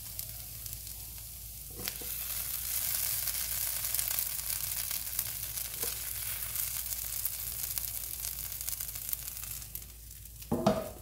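Chicken tikka pieces sizzling in a hot frying pan as they are scraped out with a spatula. The sizzle grows louder after a knock about two seconds in, and there is a clatter near the end.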